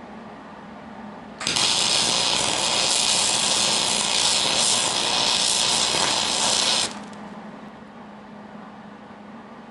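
MIG welding arc on aluminum: a Millermatic 175 with a standard MIG gun, no spool gun, running one bead of about five and a half seconds as a steady loud crackling hiss that starts and stops abruptly.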